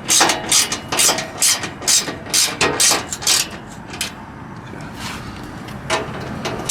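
Ratchet wrench clicking in short repeated strokes, about three a second, then quieter for a couple of seconds with one more stroke near the end.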